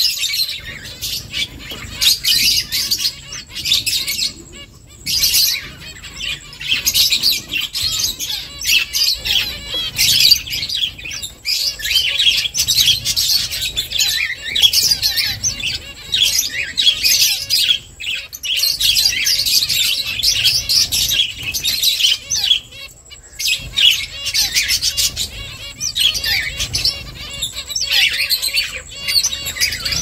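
A flock of zebra finches calling: many short, high chirps overlapping almost without pause, with a brief lull about five seconds in.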